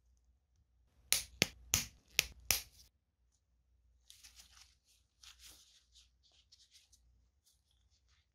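Five sharp clicks in quick succession from the 3D-printed plastic fins of a model fin-stabilized shell snapping open. Then softer scratchy rustling of gloved fingers on the plastic as the fins are folded back.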